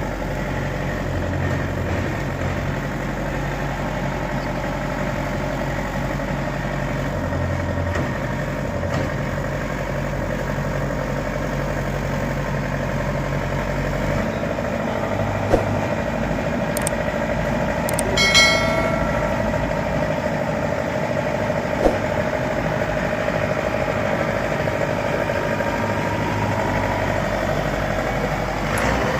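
Heavy farm machinery engine running steadily, its low note changing about halfway through. There are two sharp clicks and a brief high-pitched tone a little past halfway.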